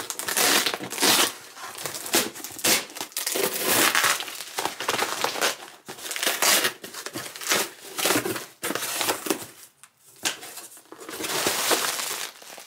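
Cardboard shipping box being torn open and its paper packing crumpled and pulled out, in irregular bursts of rustling and tearing with brief pauses.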